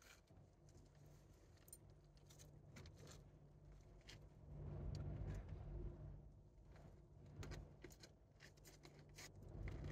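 Near silence: a faint low steady hum with scattered small clicks, a little louder around the middle.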